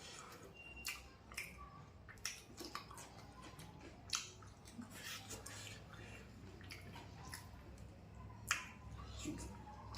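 Close-up eating sounds of someone chewing a curry meal: irregular wet mouth smacks and clicks, the loudest about 4 seconds in and again near 8.5 seconds.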